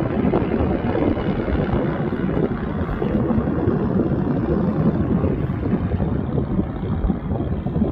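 Wind buffeting the microphone: a steady, gusty, low rumbling noise with no clear tones or rhythm.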